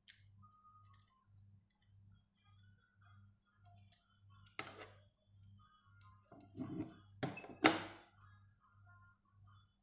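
Steel wire being bent with locking pliers on a tabletop: faint scattered ticks and scrapes, a louder scrape about four and a half seconds in, then a cluster of metal clunks and rattles between six and eight seconds in, the loudest near the end of it, as the locking pliers are let go and set down.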